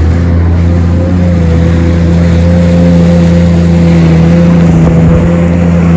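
Jet ski engine running steadily at speed, its pitch nearly constant, over the rush of water and spray along the hull.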